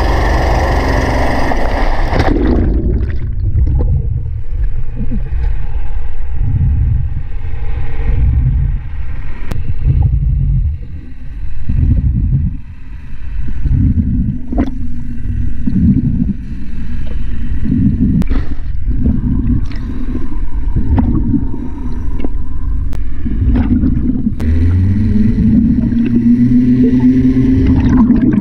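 Full-range surface noise cuts out about two seconds in, giving way to muffled underwater sound beside a ship's hull: irregular low rumbling and bubbling with a few sharp clicks. A steady hum sets in near the end and rises slightly.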